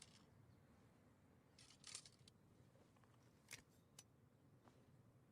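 Near silence with a faint, brief scraping rustle about two seconds in, followed by two faint sharp clicks.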